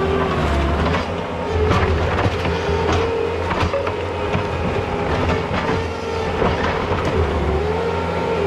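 Compact track loader's diesel engine running under load, with a hydraulic whine that wavers in pitch as the attachment digs into the dirt and roots around a tree. Frequent short knocks and clanks run through it.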